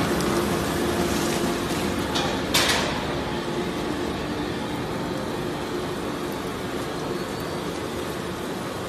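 Industrial shredder line running, its belt conveyor dropping shredded cardboard and paper onto a pile: a steady mechanical hum and rumble, with one short loud clatter about two and a half seconds in.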